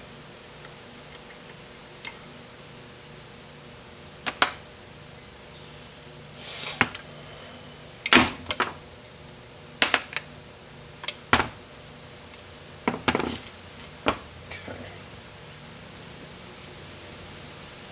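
Small metal parts and hand tools clicking and clinking on a workbench as a Chrysler 727 transmission valve body is taken apart: a dozen or so short, sharp knocks at irregular intervals over a steady low hum.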